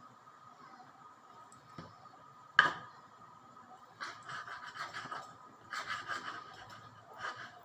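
A single sharp knock, then several short bursts of scraping or rubbing.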